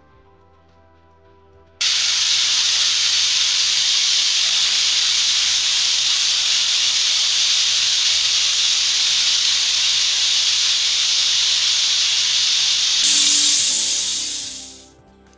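Pressure cooker whistling: steam hisses out of the vent in a loud, steady jet that starts abruptly about two seconds in and fades away near the end. It is the cooker reaching pressure while the rice and chicken cook, one of the two whistles counted for doneness.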